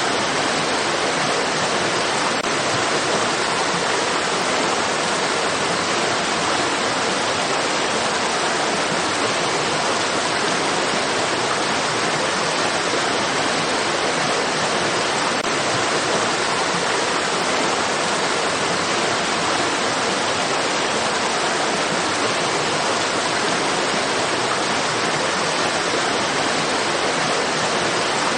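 Flowing stream water rushing in a steady, unbroken hiss with no changes.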